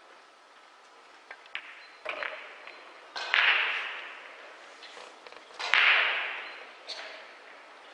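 Pool shot: a few sharp clicks of cue and balls, then a click with a low thud about two seconds in as a ball drops into a pocket. The loudest sounds are two sudden noisy bursts, about three and six seconds in, each fading away over about a second.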